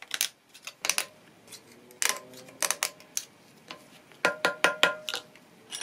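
A drill bit worked by hand, scraping and clicking against the hard packing around a broken vial inside a level's metal vial tube. It makes a run of separate sharp clicks and scrapes, and a cluster about four seconds in leaves the tube ringing briefly.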